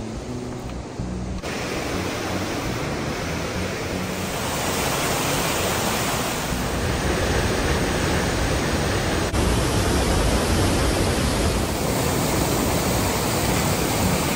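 Rushing white water of a waterfall and a cascading mountain stream: a loud, steady hiss of falling water that grows a little louder about four seconds in and shifts abruptly a couple of times.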